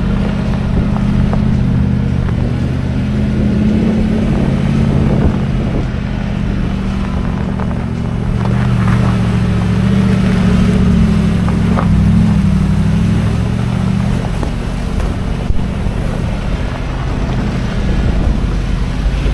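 Lexus GX470's 4.7-litre V8 running at low, slowly changing revs as the SUV drives along, with a steady wash of road and tyre noise.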